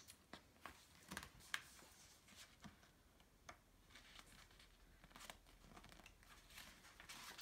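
Faint rustling of a picture book's paper pages being turned and handled, with scattered soft ticks at irregular moments.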